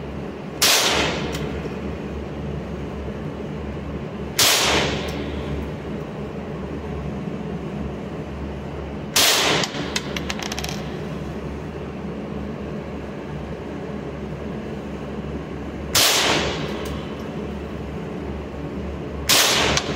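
Five loud gunshots at an indoor shooting range, spaced a few seconds apart, each followed by a short echo off the range walls. A few faint clicks come just after the third shot, over a steady low hum.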